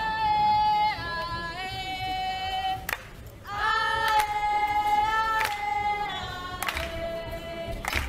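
Group singing in long, high, held notes, each phrase stepping down in pitch before a short break about three seconds in.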